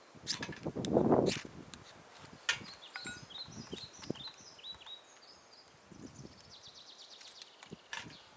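A loud rustling crunch with a few sharp clicks about a second in, then a bird calling outdoors: a series of short, high notes that slide downward, followed later by a fast high trill.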